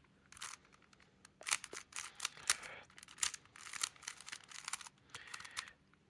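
Plastic Rubik's Cube being turned: quick clicking, rattling layer turns in short runs, as a setup move and a T-perm algorithm are executed.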